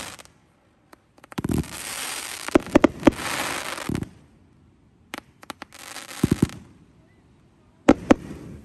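Aerial fireworks going off: sharp bangs of bursting shells over long stretches of dense crackling, with two loud bangs close together near the end.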